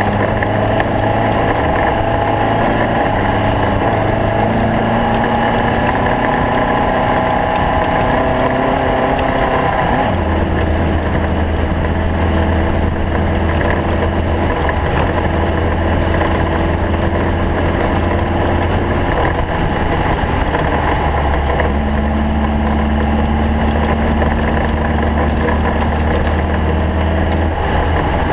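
Stock VW Bug race car's air-cooled engine running loud and steady under load. The engine note changes abruptly about ten seconds in and again about twenty-one seconds in.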